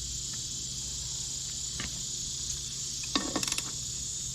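Steady high chirring of crickets throughout, with a quick run of small metallic clicks a little after three seconds in from hand tools working on a scooter's rear brake.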